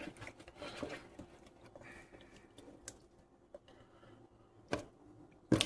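Faint handling noises, with scattered small clicks and rustles and two sharper knocks near the end.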